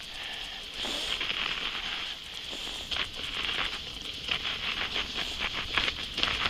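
Wooden sledge runners sliding fast over packed snow: a steady hiss with many short crunching, crackling clicks.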